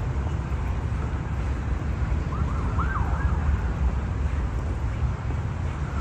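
A faint emergency-vehicle siren wailing briefly up and down in quick loops about halfway through, over a steady low rumble.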